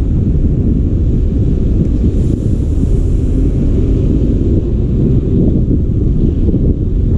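Wind buffeting the microphone of a camera on a moving motorcycle: a loud, steady low rumble.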